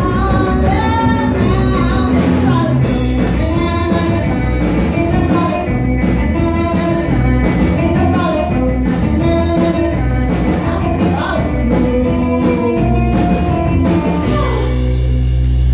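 Live rock and roll band playing loud: a woman sings lead over electric guitars and drums, and about a second before the end the band holds a final sustained chord.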